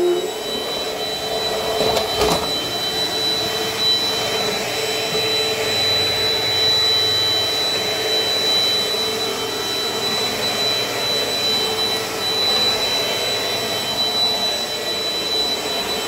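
Dirt Devil Dynamite upright vacuum cleaner running steadily with a high whine as it is pushed over the floor. A single short knock about two seconds in.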